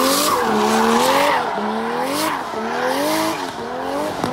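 BMW M3 drift car sliding on concrete: its engine revs climb and drop back about once a second while the tyres squeal and hiss, the sound fading as the car pulls away.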